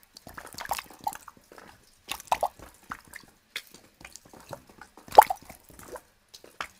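Water dripping into holes in cold snow: irregular short drips and plops at uneven intervals, the loudest drops about two seconds in and about five seconds in.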